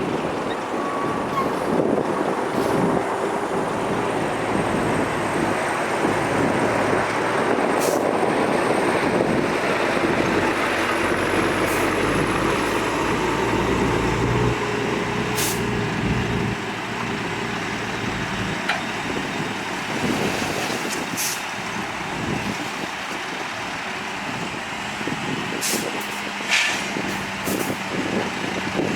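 Heavy earthmoving machinery working: the diesel engines of dump trucks and a bulldozer running, louder in the first half, with a few sharp knocks.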